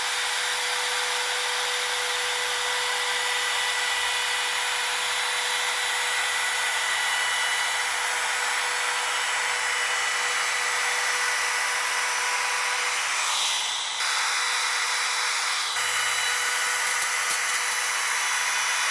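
Makita compact router running at full speed with a 45-degree chamfer bit, cutting a chamfer along the edge of a wooden 1x2 board: a steady high whine throughout. There is a brief dip and change in tone about two-thirds of the way through.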